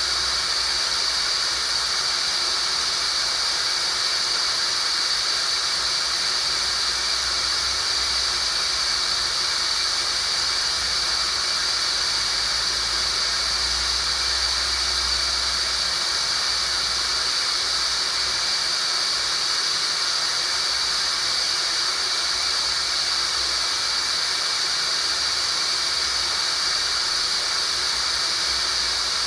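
Synthetic tinnitus sound-therapy noise: a steady, unchanging electronic hiss with a strong high-pitched band in it, like a shrill whistle buried in static.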